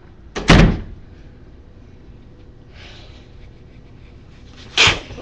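Two loud, sudden cracks about four seconds apart, the first about half a second in and the second near the end, as a person's neck is cracked.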